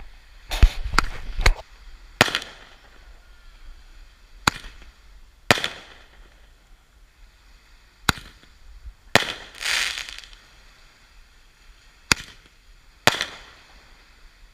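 Roman candle firing: a sharp pop for each shot, about ten shots spaced irregularly one to two and a half seconds apart. One shot about nine and a half seconds in is followed by a longer hiss.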